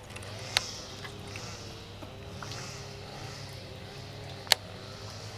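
Faint outdoor background: a steady low hum and a soft high hiss that swells and fades, broken by two sharp clicks, about half a second in and near the end.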